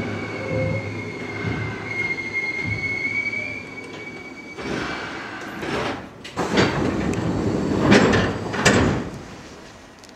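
Tokyu 8500 series electric train running with a high, slightly wavering squeal over the running noise. From about four and a half seconds in come four loud hissing bursts, and then the sound drops away, as at a stop.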